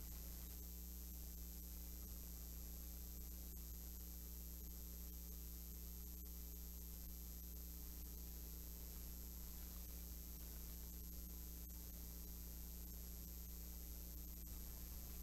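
Steady electrical mains hum with a faint high whine and hiss: the noise floor of the microphone and sound system, with no other sound.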